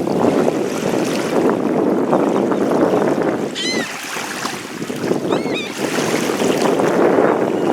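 Wind buffeting the microphone with a rushing, gusting noise, and water washing at the lake shore. A bird calls briefly twice, about halfway through.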